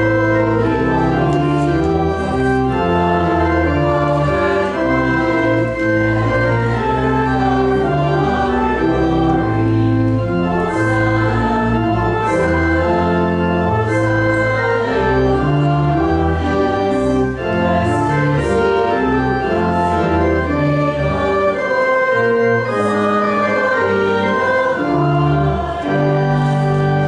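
Church organ playing a slow piece of held chords that move from one to the next about every second, with no voices.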